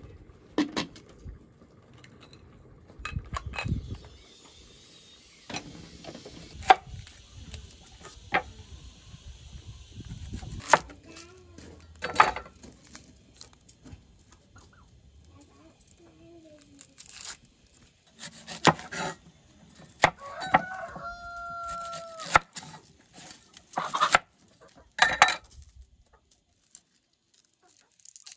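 Chickens clucking, with one drawn-out steady call a little past the middle. Sharp clicks and knocks come and go throughout from handling and peeling red onions with a knife on a wooden board.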